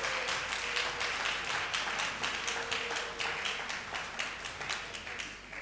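Congregation applauding, many hands clapping and dying away toward the end.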